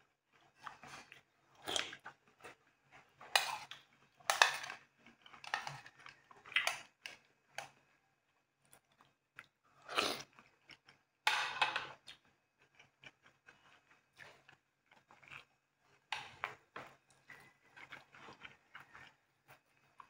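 Close-miked eating sounds: irregular chewing and crunching of food, with spoon-on-china sounds, and a few louder mouth sounds about 2, 4.5, 10 and 11.5 seconds in.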